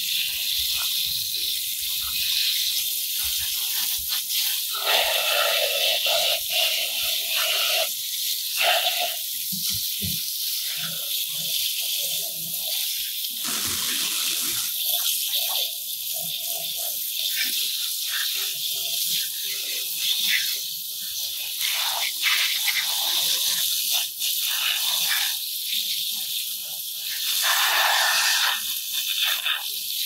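Garden hose spray nozzle jetting water onto plastic toy vehicles: a steady hiss of spray, its tone turning fuller at times as the jet hits the toys' bodies and the wet floor.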